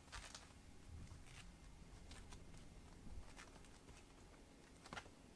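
Faint scuffling and light pattering of kittens' paws on a tatami mat as they chase and wrestle, with a few soft taps scattered through it.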